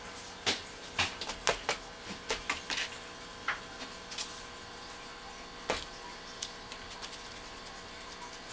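Irregular light clicks and taps from a cat at play, several in quick succession in the first three seconds and then only a few more, over a steady background hum.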